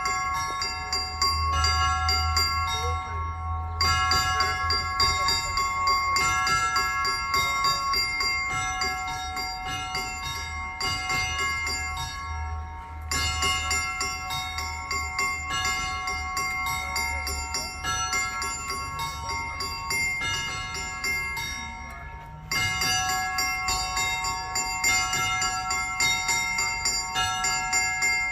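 Orthodox church bells ringing a peal: several bells of different pitches struck in a quick, continuous rhythm. The ringing thins briefly three times, a few seconds in, near the middle and about three-quarters through, then comes back in full.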